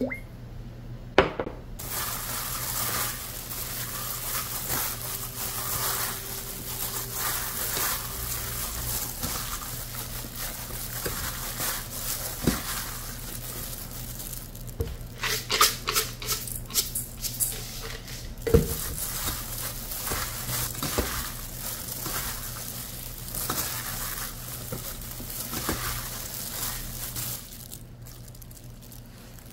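A hand in a plastic glove tossing and squeezing shredded bellflower root with chili flakes and seasoning in a stainless steel bowl: a steady wet squishing and rustling, with a few sharp knocks against the bowl. It gets quieter near the end.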